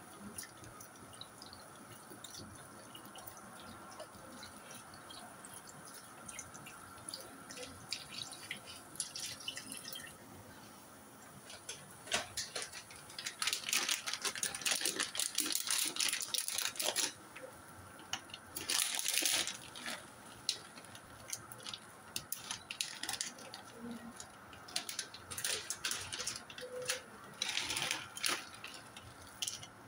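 Milk being poured from a carton into a steel cooking pot, with scattered clicks and, from about halfway on, repeated bursts of crackling and rustling as ingredients are handled and added.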